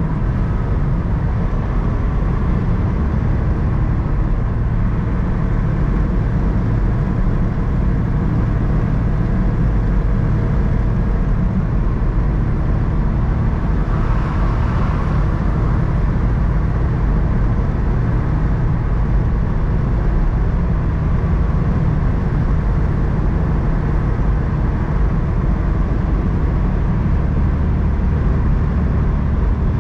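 Steady engine drone and tyre and road noise from a vehicle cruising along a highway, with a brief swell of higher hiss about halfway through.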